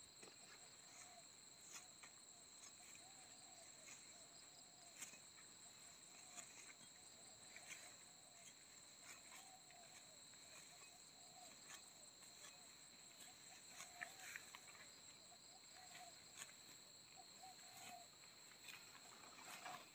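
Near silence: a faint, steady high-pitched insect trill, like crickets, with scattered faint ticks and rustles.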